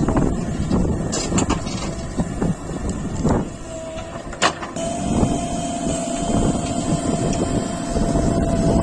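JCB 3DX backhoe loader's diesel engine running, with several knocks and one sharp knock about four and a half seconds in. A steady high whine joins from about four seconds on.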